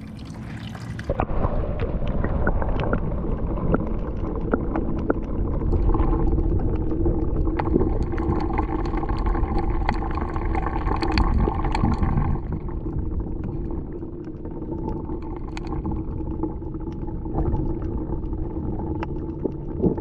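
Muffled underwater sound picked up by a camera lowered into shallow seawater: a steady low rumble with gurgling and scattered small clicks. The higher sounds drop away about a second in as it goes under.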